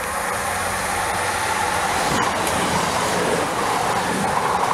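A CrossCountry Voyager diesel multiple unit approaching at speed and passing close by without stopping. The rush of its wheels and engines grows steadily louder.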